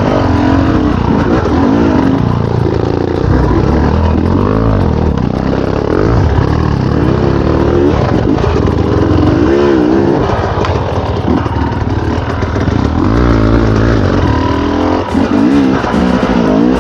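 Off-road dirt bike engine revving in repeated rising and falling bursts as the throttle is worked on and off.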